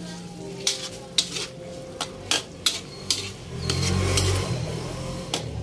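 Metal spatula clinking and scraping against a metal wok while stir-frying long beans: a string of sharp clanks through the first few seconds, then a louder stretch of stirring about four seconds in, and one more clank near the end.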